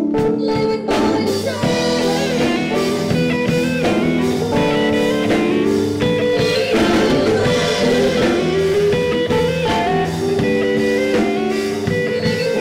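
Rock band music with guitar and drums, held notes over a steady beat.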